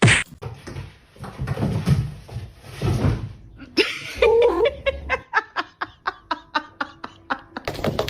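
A person laughing in a quick run of short bursts, after a sudden loud sound at the very start.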